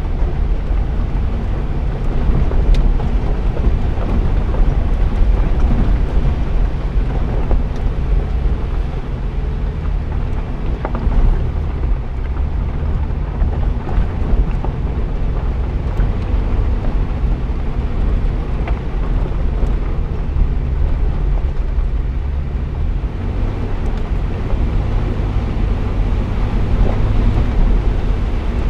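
Jeep engine running at low speed on a rough dirt track, with wind buffeting the hood-mounted camera's microphone and occasional small clicks from the road.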